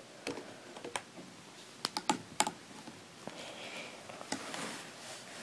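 Light clicks and taps of playset parts being handled and fitted together by hand, several in quick succession about two seconds in, with soft rustling between them.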